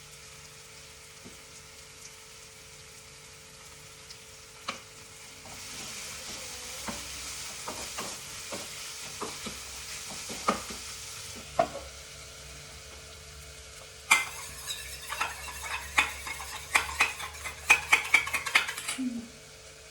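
Food frying in a pan: a sizzle from about 6 to 11 seconds with occasional spatula taps, then from about 14 seconds a quick run of spatula scrapes and clatters against the pan as the food is stirred. A faint steady hum runs underneath.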